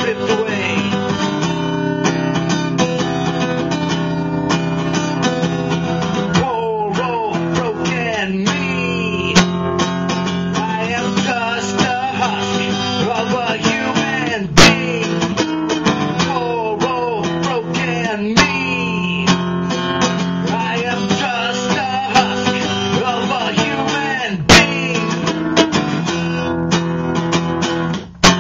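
Live strummed acoustic guitar with a man singing over it, a folk-rock song. A few sharp clicks cut through the music, the loudest about halfway through and another about three-quarters of the way in.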